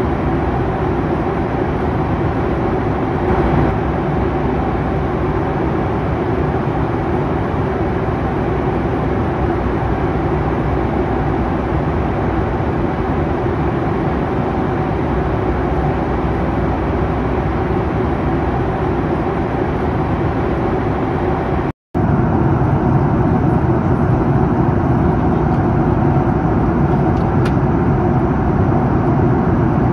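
Steady cabin noise of a Boeing 737 MAX 8 at cruise: the even rush of air over the fuselage and the drone of its CFM LEAP-1B engines, with a low steady hum underneath. It cuts out for a split second about two-thirds through and then resumes.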